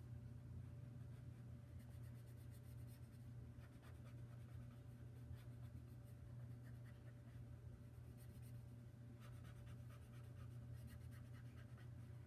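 Faint scratching of a pen tip on paper as shading strokes are drawn, in short runs, over a low steady hum.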